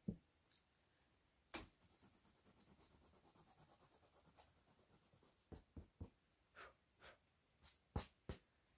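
Drawing strokes on a stretched canvas: a couple of sharp taps, then a quick run of small scratchy strokes, about five a second, followed by a handful of separate, sharper strokes near the end.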